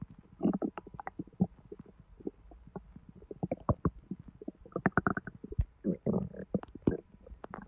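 Human bowel sounds heard through a microphone pressed to the belly: an irregular run of small pops and clicks, with longer gurgles about half a second in, around five seconds in and around six seconds in. The gut is active after hot sweetened tea, in a belly that has been constipated.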